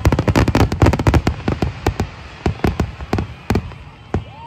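Fireworks going off: a fast run of cracks and bangs in the first second or so, then separate bangs spaced a fraction of a second apart. A whistling tone starts right at the end.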